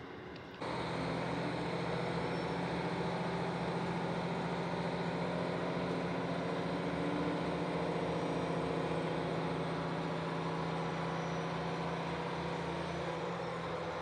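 Diesel railcar engine of a JR Hokkaido KiHa 40 series train, heard from inside the carriage: a steady drone that comes in suddenly about half a second in.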